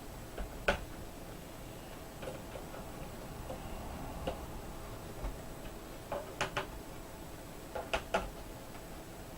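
Small sharp clicks of a screwdriver and screws being worked into a laptop's plastic case. They come singly at first, then in two quick runs of three, after about six seconds and again around eight.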